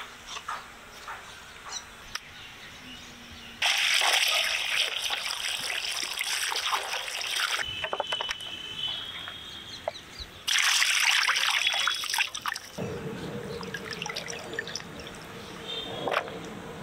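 Water pouring and splashing over raw duck pieces as they are washed, in two spells of a few seconds each that start and stop abruptly. Between them come quieter sounds of wet meat being handled.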